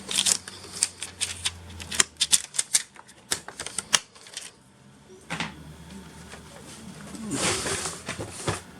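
Quick plastic clicks and taps of hands working in a laptop's memory compartment, taking out a DDR3 RAM module. A longer scraping, rustling sound comes near the end.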